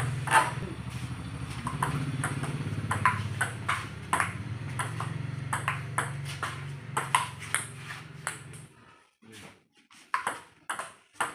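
Table tennis rally: the ball clicks sharply off paddles and table about twice a second. A steady low hum runs underneath and stops about nine seconds in, while the clicks carry on.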